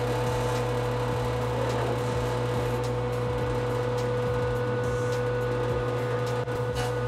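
A steady low mechanical hum with a constant higher tone above it and a few faint clicks.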